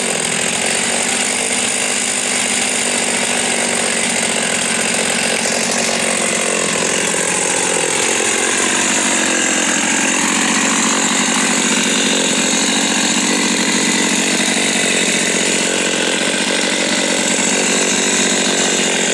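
Husqvarna 50 two-stroke chainsaw idling steadily.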